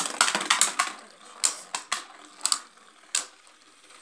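Two Beyblade spinning tops, Xeno Xcalius and Victory Valtryek, clashing against each other and the sides of a plastic basin. It opens with a quick run of sharp clacks in the first second, then single clacks come at irregular gaps.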